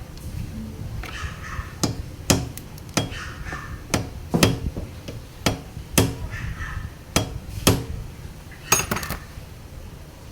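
A series of about a dozen sharp, irregularly spaced metallic knocks, roughly one every half second, with a quick cluster near the end: tool blows on metal during repair work on a motorcycle's loose starter bendix.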